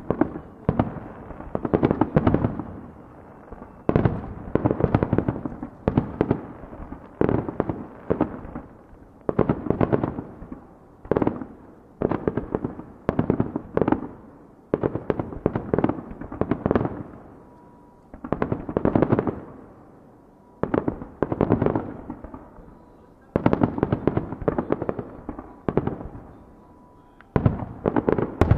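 Wide starmine fireworks: aerial shells bursting in rapid succession, a dense run of booms and crackles coming in clusters every second or two, with short lulls between volleys.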